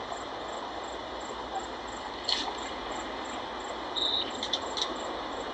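Crickets chirping steadily at about three chirps a second over a steady background hiss, with a few faint clicks and a brief high tone in the second half.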